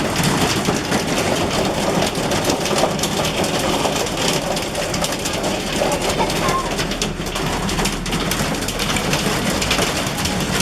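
Hailstorm: a dense, continuous clatter of hailstones striking hard surfaces, with a steady hiss of heavy precipitation.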